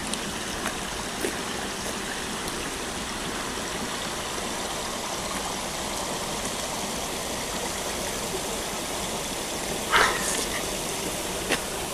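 Steady rushing of a forest brook's running water, with a short sharp noise about ten seconds in.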